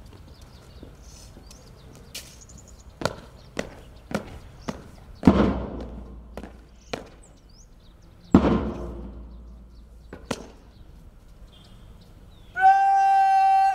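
Drill boots stamping on stone paving: a run of single sharp stamps, and two heavy stamps by the whole contingent together, about five and eight seconds in, each ringing out. Near the end comes a long, drawn-out shouted drill command held on one pitch.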